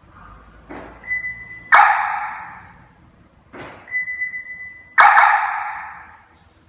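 Hollywood Siren III aftermarket car-security siren sounding its answer-back signal twice, the confirmation given when the car is locked or unlocked by remote. Each time there is a click, then a steady high beep, then a loud chirp that fades out over about a second.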